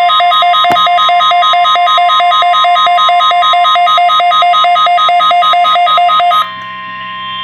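RadioShack 12-262 weather radio's built-in alarm sounding a rapid high-low beeping over the steady 1050 Hz warning alarm tone of a NOAA Weather Radio test broadcast, which is what sets the receiver's alarm off. The beeping cuts off about six and a half seconds in, leaving the steady tone alone.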